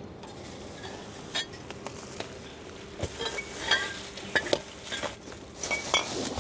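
Groceries being shifted around in paper bags in a car trunk: scattered knocks and light clinks of the items, with rustling of the bags.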